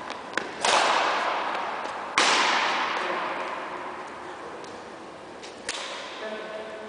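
Badminton racket strokes on a shuttlecock: two loud, sharp cracks about half a second and two seconds in, and a fainter one near the end, each ringing on in a long echo around a large sports hall.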